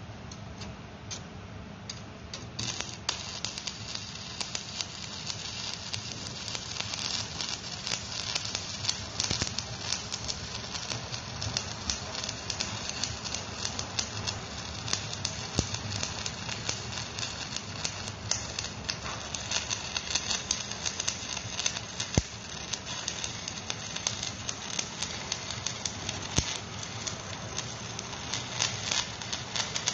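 Electric stick welding arc crackling and sputtering steadily. It strikes up about two and a half seconds in, after a short stretch of quieter hiss.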